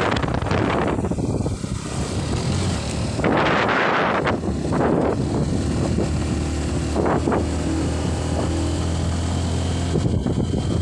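A vehicle engine running with a steady low hum, with wind gusting across the microphone, strongest a few seconds in.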